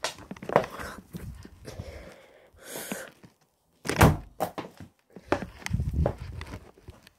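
A string of knocks, bumps and scuffs from things being handled and moved about, with one sharp thump about four seconds in.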